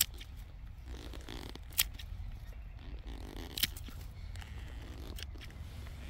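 Heavy-duty serrated safety shears of a Nextorch MT20 multi-tool snipping plant stems. Three sharp snips come a little under two seconds apart, and a fainter one follows near the end.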